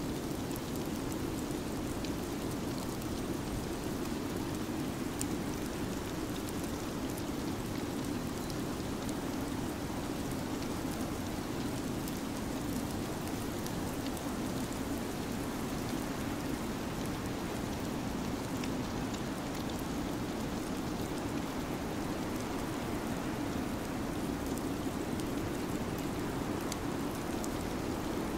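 Steady rushing noise of a winter-storm ambience track, even throughout, with faint scattered ticks on top.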